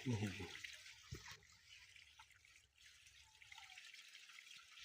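Faint steady trickle of water running at a spring outlet, with a brief faint voice at the start.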